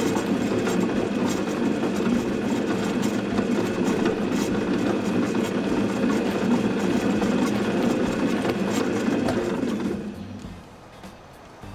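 Aikosha chemical mixer running, its drive turning two hook-shaped agitators with a steady mechanical running noise. The noise dies away about ten seconds in as the mixer stops.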